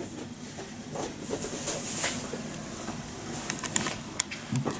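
Cardboard packaging box being handled and moved away: rustling and scuffing, with a few small knocks and clicks near the end.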